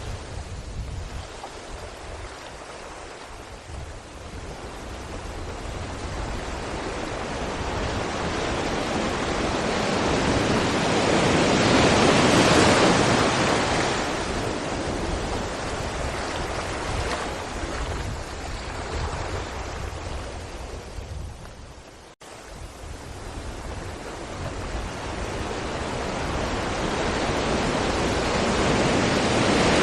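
Sea waves breaking against rocks: a rushing surf that swells to a peak about halfway through, eases off, and builds again toward the end. It cuts out for an instant about two-thirds of the way through.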